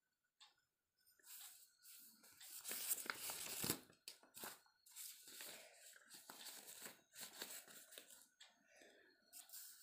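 A sheet of drawing paper being handled and pulled away, rustling and crinkling. There is a long rustle starting about a second in and loudest around three seconds, then shorter rustles.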